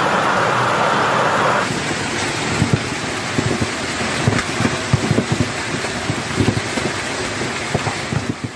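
Hailstorm: a dense, steady hiss of hail and rain driven by strong wind. About two seconds in the sound changes abruptly, and from then on many irregular hard knocks of hailstones striking nearby surfaces stand out from the hiss.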